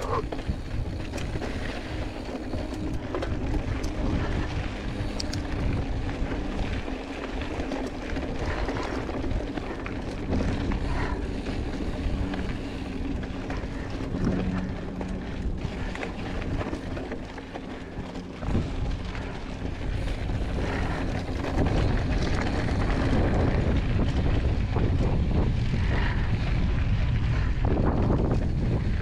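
Giant Fathom 2 hardtail mountain bike rolling fast over a rocky dirt trail: the tyres crunch on gravel, the bike knocks over bumps, and wind buffets the chest-mounted microphone. The rumble gets louder about two-thirds of the way through as the speed picks up.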